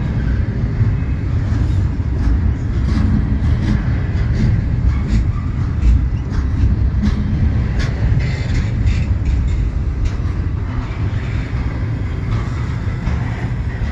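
Double-stack intermodal well cars of a freight train rolling slowly past: a steady low rumble of steel wheels on rail, with scattered clicks and clanks.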